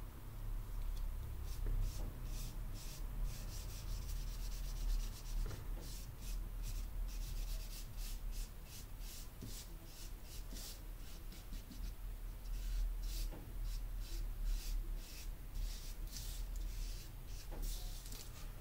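A small teardrop-shaped ink pad is rubbed directly over paper to lay down colour, giving a soft, scratchy swish with each short stroke, about two strokes a second.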